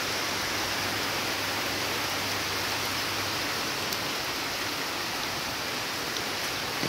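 Heavy rain falling steadily, a dense, even hiss with an occasional faint drop tick.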